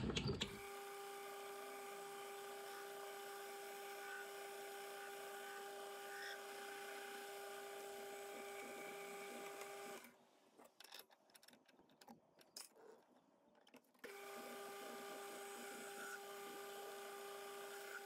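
Metal lathe running steadily, its motor and gearing giving a faint, even whine with two steady tones. The sound drops to near silence for about four seconds in the middle, then returns unchanged.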